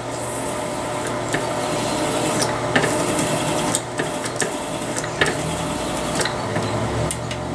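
A crimp-removal cutter rasping out the crimped primer pocket of a .223 brass case, with a steady motor hum underneath and several sharp metallic clicks of brass.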